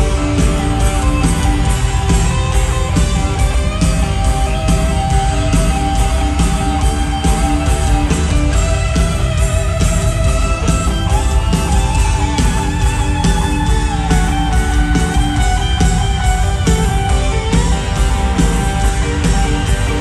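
Rock band playing live in an arena: electric guitars with sustained lines over drums keeping a steady beat.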